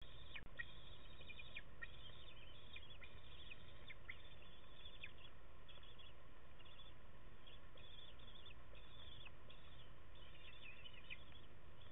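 Eaglets in the nest giving many short, high chirps and cheeps, calling back and forth in quick clusters throughout, over a steady low background noise.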